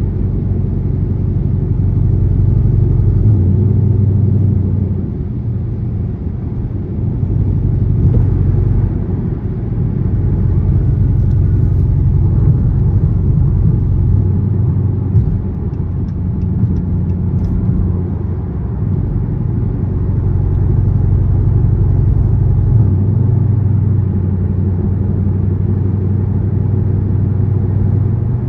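Dodge Charger R/T's 5.7-litre Hemi V8 with a catless, gutted exhaust, droning steadily at cruise, heard from inside the cabin. The drone swells and eases a few times.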